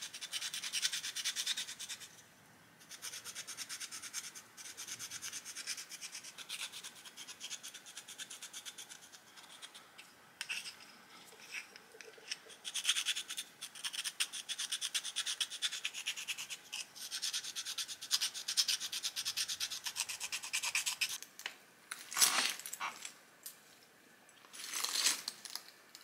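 Pressure-notching the edge of a chert flake with a pointed notching tool: rapid fine scratching strokes and small ticks of stone against the tool, in spells broken by short pauses, with two louder scrapes near the end.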